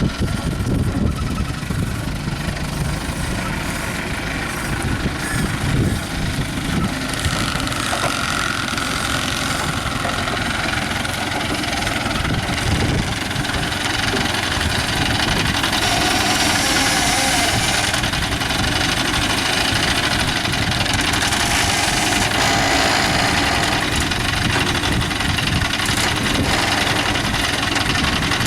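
Diesel engine of an ACE 14XW hydra crane running steadily, getting louder about halfway through as it works harder.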